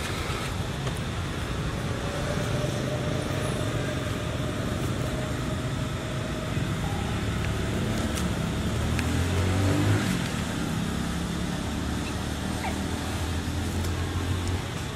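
A motor vehicle's engine running nearby, a low steady hum that swells to its loudest about ten seconds in.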